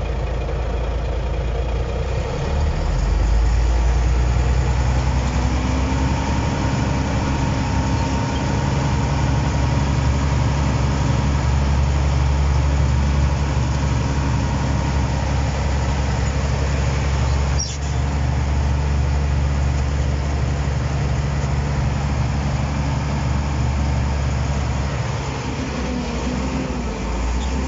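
Bulldozer's diesel engine running steadily, heard from inside the operator's cab. It grows louder a few seconds in and eases off near the end, with a single sharp click about two-thirds of the way through.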